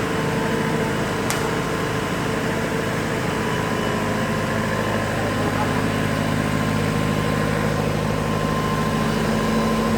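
Weichai WP2.3D40 diesel engine of a welding generator set running steadily at constant speed under test. A single sharp click about a second in.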